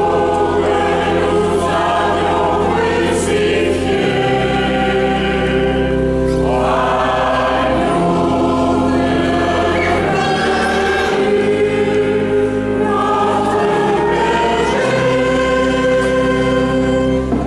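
Mixed choir of men's and women's voices singing a hymn together, with steady held notes that change every second or two.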